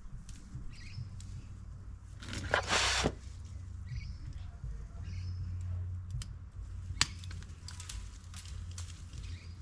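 A root hook scraping and raking soil from an azalea's root ball, with a loud rasping scrape about two and a half seconds in. A sharp click near the seven-second mark and a few lighter clicks follow as the tools are handled.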